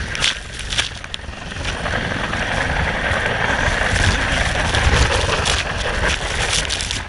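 Helicopter rotor and engine noise: a steady low pulsing rumble under a broad rushing hiss.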